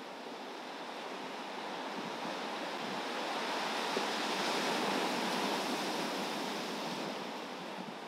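Big ocean waves surging onto a shore of volcanic rock and sand. One rush of surf swells, is loudest about halfway through, and ebbs away near the end.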